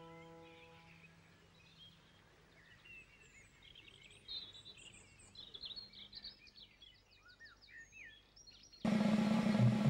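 Faint birdsong, scattered chirps and short whistles, after a held chord of background music fades out in the first second. Near the end a sudden loud, hissing sound cuts in with a low hum under it.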